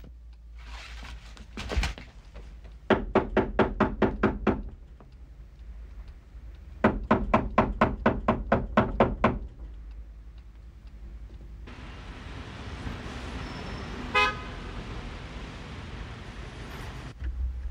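Two bursts of a rapidly pulsing tone, about six pulses a second and each lasting about two seconds. Then steady city-street traffic noise, with a short horn-like toot about two-thirds of the way through.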